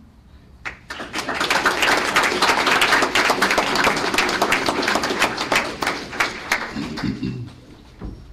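An audience applauding: a few first claps just under a second in, then dense clapping that thins out and stops about seven and a half seconds in.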